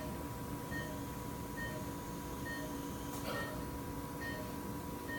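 Patient monitor's pulse-oximeter beeping in a steady rhythm: a short high beep about every 0.9 seconds, roughly 70 a minute, each beep marking one of the patient's heartbeats. Underneath is a steady hum of operating-room equipment, and there is one faint click a little past three seconds in.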